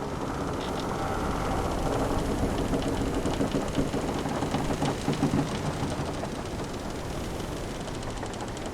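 Ambience of a wooden sailing ship at sea: a steady wash of waves and wind, with creaks and rattles from the hull and rigging that grow louder in the middle.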